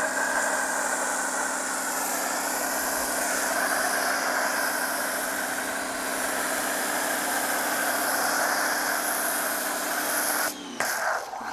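Pressure washer running with a steady hum while the Adam's Premium Foam Cannon, fitted with a 1.1 mm orifice, sprays a hissing jet of foam. Near the end the spray cuts off briefly twice and the motor hum sags, then picks back up.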